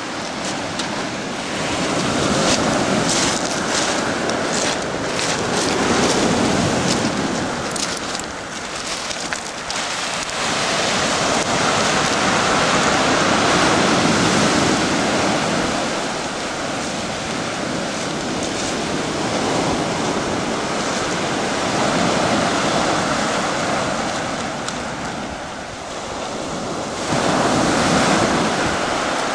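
Surf breaking and washing up a pebble beach, the loudness rising and falling with each wave. Wind buffets the microphone.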